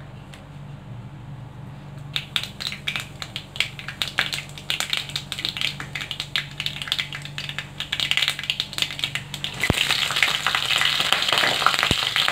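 Mustard seeds popping and crackling in hot oil in a kadhai, the pops coming thicker from about two seconds in. Near the end green chillies go into the pan and the oil breaks into a steady sizzle.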